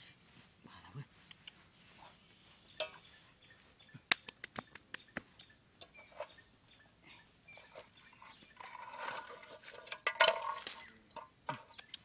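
Scattered sharp taps and knocks of hand work on bare, packed soil, with a cluster of quick clicks about four seconds in. A louder clattering burst with a ringing edge comes about nine to ten seconds in.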